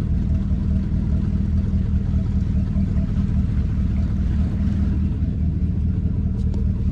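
Motorboat engine running steadily at low speed, an even low-pitched drone.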